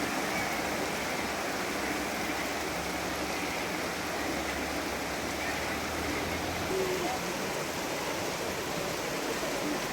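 Swollen floodwater rushing steadily after heavy rainfall.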